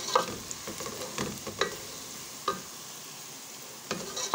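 Thinly sliced onions sizzling in oil in an aluminium pot, frying to a light pink, while a wooden spoon stirs them with several scrapes and knocks against the pot. About two and a half seconds in the stirring pauses for a stretch of plain sizzling, then starts again near the end.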